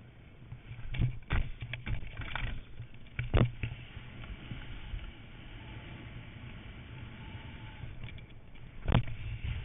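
Skis sliding and scraping over packed snow, with a steady rush of wind on the GoPro's microphone. Sharp thuds about a second in, around three and a half seconds, and loudest near the end, when the skis land after a grabbed jump.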